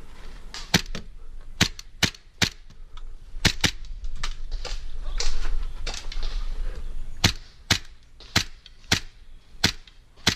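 Gas blowback airsoft pistol, a Tokyo Marui Hi-Capa 5.1 Gold Match, firing single shots: about a dozen sharp cracks. They come in quick groups in the first few seconds, then as a steady string of about one a second from about seven seconds in.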